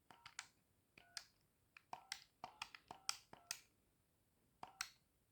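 Keypad buttons on a corded landline phone being pressed in quick succession. Each press is a click, most with a short key beep. There is a pause before the last two presses near the end.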